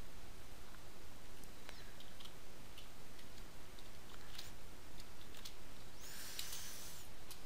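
Computer keyboard keys clicking as code is typed, scattered single keystrokes over steady background noise, with a brief rustle about six seconds in.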